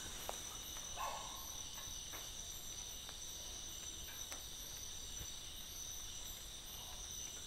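A chorus of crickets chirping steadily at night, with a few faint ticks and taps over it.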